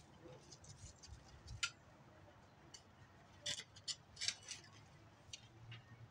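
Metal tines of a hand cultivator scratching through garden soil: scattered short scrapes and clicks, most of them bunched together about halfway through.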